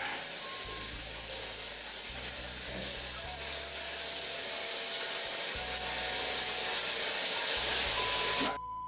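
Shower spray running in a tiled bathroom: a steady hiss of falling water that cuts off abruptly near the end.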